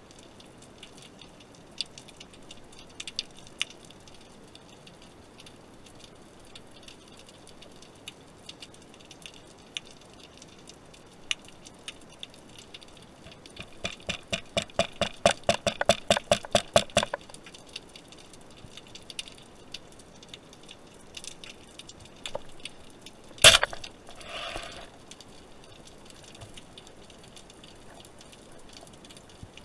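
Underwater sound on a spearfishing dive: scattered faint clicks and crackle, a fast run of clicks lasting a few seconds in the middle, then one sharp, loud crack about two-thirds of the way through, the shot of a speargun.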